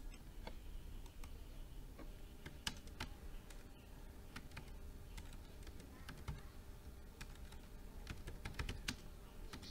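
Faint computer keyboard typing: scattered, uneven keystrokes.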